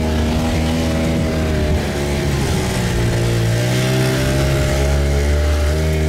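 Arctic Cat Wildcat Sport Limited side-by-side engine running under throttle on a rough trail. The engine note sags about two seconds in and climbs again near four seconds.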